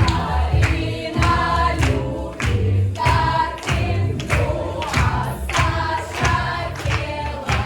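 A song with several voices singing together over a steady beat and a strong bass line.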